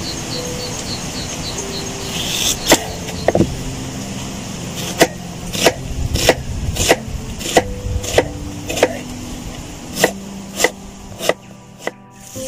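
Chef's knife slicing through an onion onto a wooden cutting board: about a dozen sharp knocks of the blade on the board, roughly one every half second, starting a couple of seconds in with a short pause before the last few.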